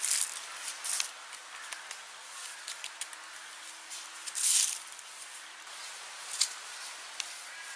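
Brief rustling bursts from a marabou stork moving its wings and feet in dry leaf litter, the loudest a half-second rush about four and a half seconds in, when its wings are spread.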